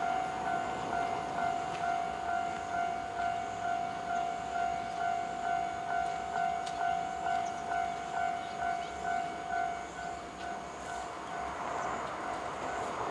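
Japanese level-crossing warning bell ringing steadily, an even ding about twice a second. Near the end the rising rumble of the approaching 223 series electric train builds under it.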